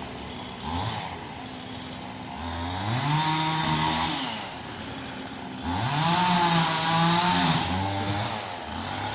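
Chainsaw idling and revved up twice, each rev held for a second or two before dropping back to idle.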